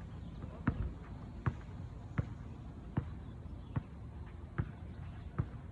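A steady run of short, dull thuds, evenly spaced about one every 0.8 seconds.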